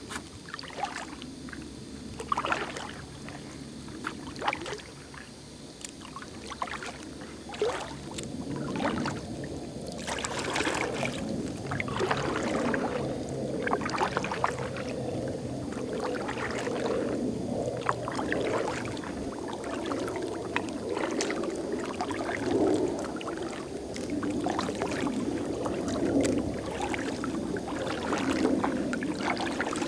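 Water lapping and dripping around a kayak, with scattered small irregular clicks and knocks. A low, even rush underneath gets louder about a third of the way in.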